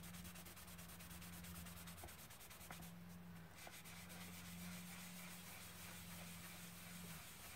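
Faint rubbing of a hand over paper, smoothing a freshly glued paper piece down onto a card, with a few light ticks, over a steady low hum.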